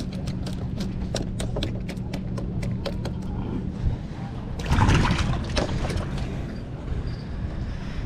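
A quick run of light clicks, then a splash about five seconds in as a porgy is dropped into a bucket of water.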